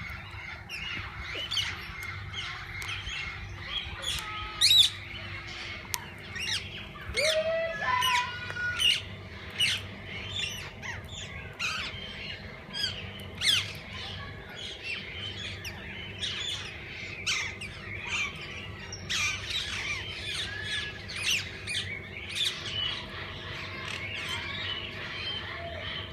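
A flock of parakeets squawking and chirping, many short sharp calls overlapping, a few louder ones standing out, over a faint steady low hum.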